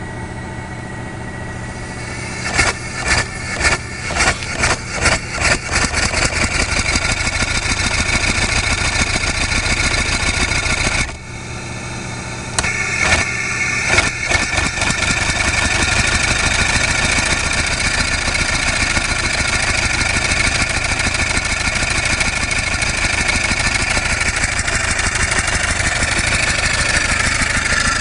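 Original Stanley steam car engine, a two-cylinder double-acting engine, running on compressed air. After a steady hiss, separate exhaust chuffs start a couple of seconds in and quicken until they run together into a fast, steady beat; a little before halfway it briefly drops off, then chuffs back up and runs fast and steady.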